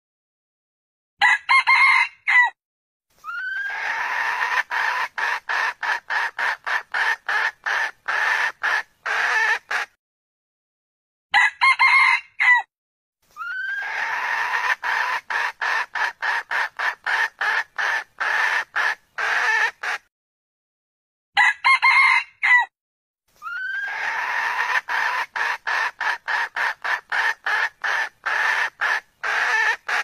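Red junglefowl (wild chicken) rooster crowing and hen clucking, a roughly ten-second call recording played three times over. Each round is a short call of about a second, then about six seconds of rapid clucks, about three a second, with abrupt silent gaps between the rounds.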